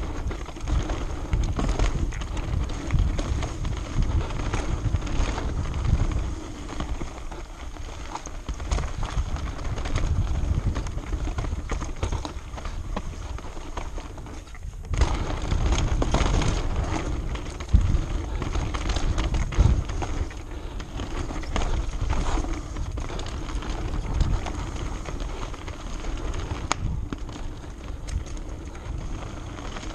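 Santa Cruz Nomad mountain bike ridden fast down a dirt singletrack: tyres rolling and skidding over the dirt with low rumble and wind on the helmet-cam microphone, and the bike's frame and chain rattling, with sharp knocks here and there over bumps.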